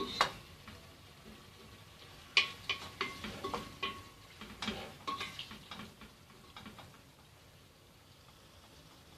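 A metal spoon stirring meat, onion and herbs in an aluminium pressure cooker pot, scraping and clinking against the pot with a ringing note. There is a sharp knock at the start and a run of strokes from about two to five seconds in.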